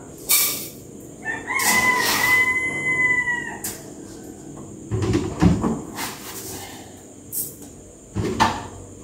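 A rooster crowing once, one drawn-out call of about two seconds beginning just over a second in. A few sharp knocks and clicks come before and after it.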